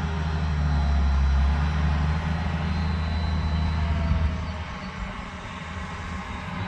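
Farm tractor engine running with a deep, steady low rumble while working the field, dropping noticeably in level about four seconds in.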